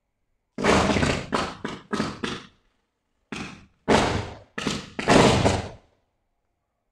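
Pole-mounted electrical transformer blasting in an arcing short-circuit fault: a run of about nine sharp bangs, each dying away within a fraction of a second. Five come in quick succession soon after the start, then four more after a pause of under a second.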